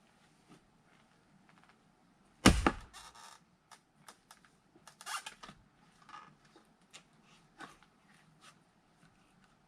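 An axe strikes a log once, hard, about two and a half seconds in, splitting firewood. A string of lighter knocks and clatter follows.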